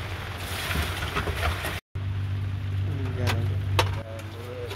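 Rain hissing steadily, then after a cut a boat engine running with a steady low hum, with a few sharp knocks and faint voices over it.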